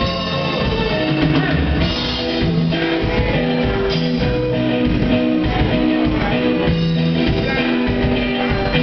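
Live rock band playing: electric guitar and bass guitar over a drum kit.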